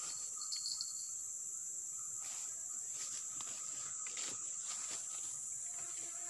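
Steady high-pitched insect drone in tropical forest, with a brief high chirp about half a second in. A few soft rustles come from grass and undergrowth being brushed.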